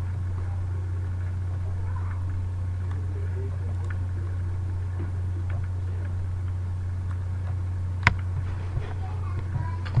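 A steady low hum with a sharp click about eight seconds in, followed by a few fainter clicks.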